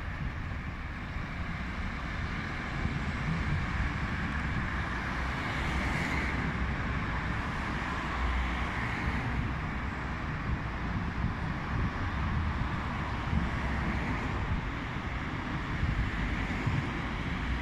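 Steady road traffic noise from cars and trucks, a constant wash with a deep rumble underneath.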